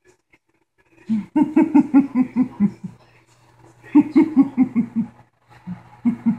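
A man laughing in three bouts of quick, rhythmic "ha" pulses, about five a second, the first and longest starting about a second in.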